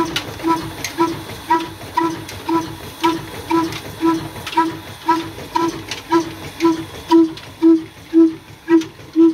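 Ruston Hornby stationary diesel engine running steadily, its exhaust beating about twice a second. Each beat is a hollow, pitched pop with a sharp click, and the beats grow louder about seven seconds in.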